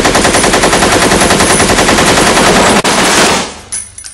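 Rapid automatic gunfire sound effect: a loud, unbroken run of evenly spaced shots that stops about three and a half seconds in and dies away.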